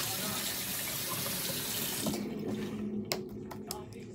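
Bathroom sink tap running, then turned off about halfway through, followed by a few short clicks and taps.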